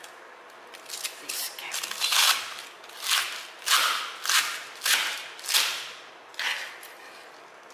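A knife slicing through a head of raw green cabbage and striking a plastic cutting board: a run of crisp crunching cuts, about seven strong strokes roughly one every half second, with lighter cuts before them.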